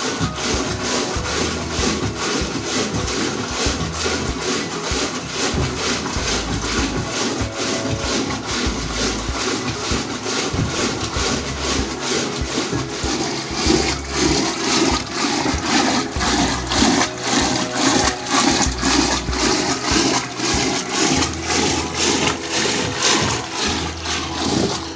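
Curd being churned in a steel pot with a hand-pulled bamboo churning rod spun back and forth: a rhythmic swishing and sloshing as the curd is beaten to bring up the butter.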